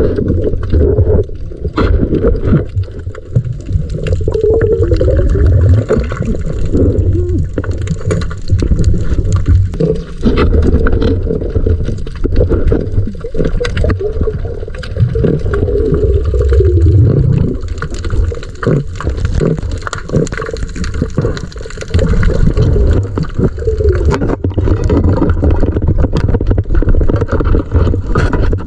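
Muffled sloshing and gurgling of sea water with a heavy low rumble, as heard by a waterproof camera going in and out of the water while spearfishing.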